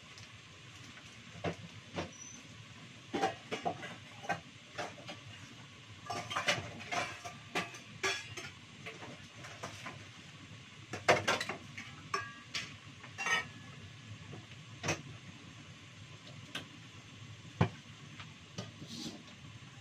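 Kitchen clatter: metal plates, bowls and utensils knocked and set down on a tiled counter, in scattered clinks and knocks, a few of which ring briefly. Under them runs a faint steady hiss.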